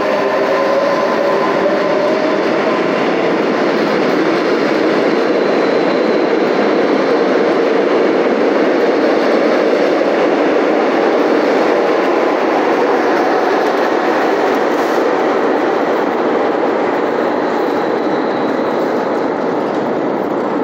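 Renfe Series 450 double-deck electric commuter train pulling out and running past, a steady loud rumble of wheels on the rails. A faint rising motor whine fades out in the first few seconds.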